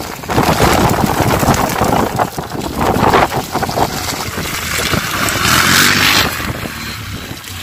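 Racing quad (ATV) engine revving hard on a dirt track, its pitch rising and falling as the rider works the throttle through a turn.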